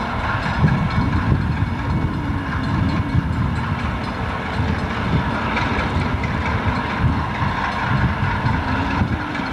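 Burlington Northern diesel locomotives moving slowly at the head of a train, their engines running with a steady low-pitched sound and some wheel-on-rail noise.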